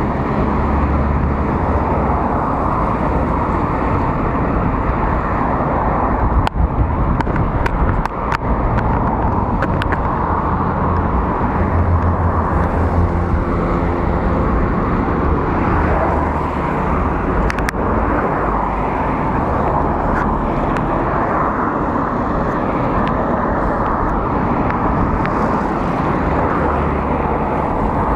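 Road traffic on a multi-lane road heard from a moving bicycle: a steady rush of passing cars and trucks over a low rumble. A few sharp clicks come around seven to eight seconds in, and one more a little past halfway.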